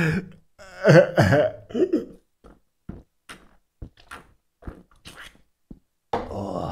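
A man drinking from a can of Coke Zero: a short loud vocal sound about a second in, then a series of small swallowing gulps and clicks over about three seconds, ending in a breathy exhale.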